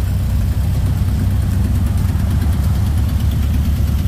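Classic air-cooled Volkswagen Beetle flat-four engines idling steadily.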